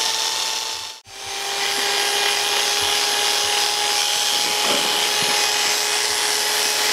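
Electric hair clippers running with a steady hum while cutting a taper up the back of the neck. The sound cuts out for an instant about a second in, then carries on at a slightly lower pitch.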